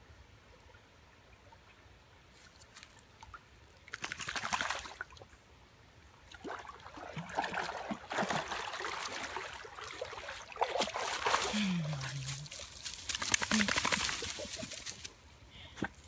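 A dog wading through a shallow creek, water sloshing and splashing around its legs in irregular spells, the busiest from about a third of the way in until near the end.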